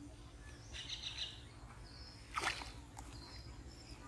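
Small birds chirping, with a brief rush of water about two and a half seconds in as a cast net is hauled up out of a pond.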